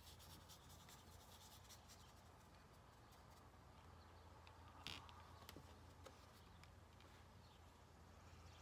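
Near silence: faint strokes of a paintbrush on stretched canvas over a low steady hum, with a soft tap about five seconds in.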